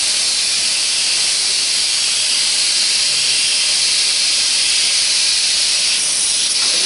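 Rotary bottle filling-and-capping monoblock running, giving a steady loud hiss of gas or air with no distinct knocks or rhythm.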